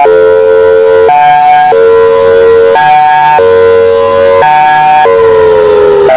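Federal Signal Thunderbolt 1002B outdoor warning siren sounding loudly. Its chord of tones switches back and forth between a lower and a higher pitch about every second, then begins sliding down in pitch near the end.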